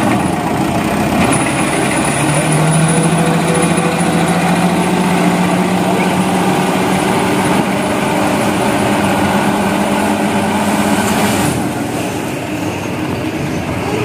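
Mitsubishi Fuso Canter dump truck's diesel engine held at raised revs to drive the hydraulic tipping hoist as the loaded sand bed lifts, its hum climbing slowly in pitch. The revs drop back near the end.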